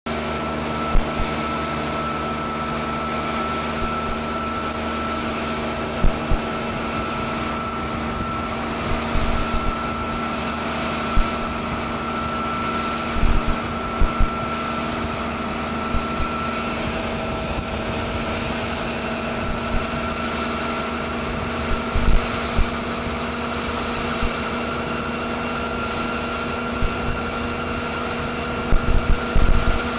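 Steady drone of an aircraft engine heard from inside the cabin, with a constant hiss of wind and occasional short low thumps on the microphone.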